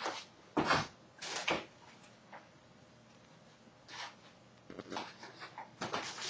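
Plastic-wrapped food packages being handled at a kitchen counter: short bursts of crinkling plastic and items knocking on the counter, with a quiet stretch in the middle.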